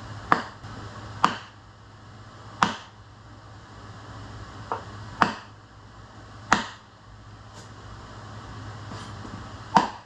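Hammer blows on a seized John Deere 1010 diesel engine, struck to try to break its stuck pistons free: six hard, sharp strikes at uneven intervals a second or more apart, each ringing briefly, with one lighter tap between them.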